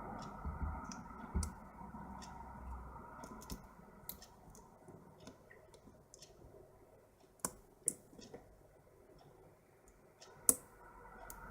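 Small metallic clicks and ticks of a lock pick and tension wrench working the pin stack of a padlock during single-pin picking. The clicks come irregularly; the loudest is about ten seconds in.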